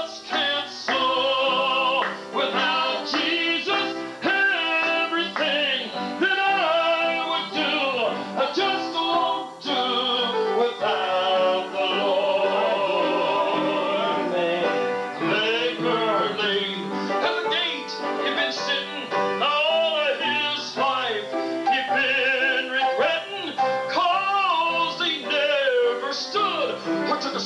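Live southern gospel song: a man sings lead into a handheld microphone over steady instrumental accompaniment.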